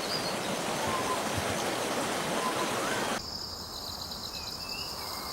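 Wild outdoor ambience: a steady rushing noise like running water for about three seconds, then an abrupt cut to a steady high insect chirring, with a few faint bird calls.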